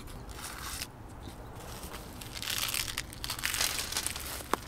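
A thin black plastic nursery pot being handled and squeezed to loosen a pot of lithops seedlings, with the plastic crinkling and the gritty soil mix crunching inside. The crackling is busiest past the middle, and there is one sharp click near the end.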